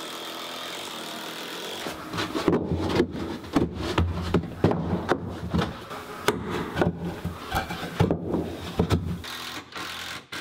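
A prefabricated shower niche being worked into its wooden stud framing: a run of irregular knocks, taps and scraping of the niche against the wood, some of them from a block of wood knocked against it. The knocking starts about two seconds in and dies away a second or so before the end.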